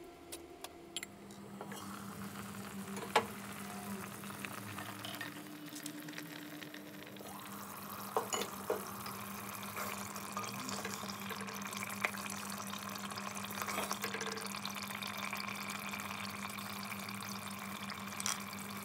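Beef curry bubbling and simmering in a clay handi pot over a steady low hum, with a few sharp knocks of a wooden spoon against the pot.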